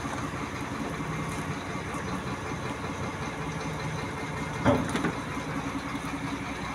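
An engine idling steadily, with a sudden loud knock about two-thirds of the way through, followed shortly by a softer one.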